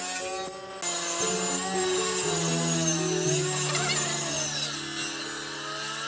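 A woodworking power tool cutting through a wooden board, with background music of held notes.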